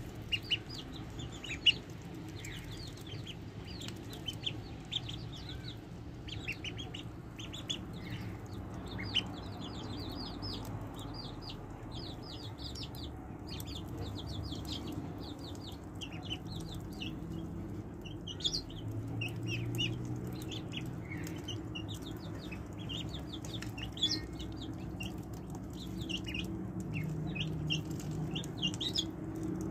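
A group of ducklings peeping constantly while they feed, many short high peeps overlapping, with a few sharp clicks from bills pecking at the food.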